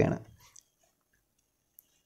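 The last syllables of a narrator's spoken word, then near silence with one faint, short tick near the end.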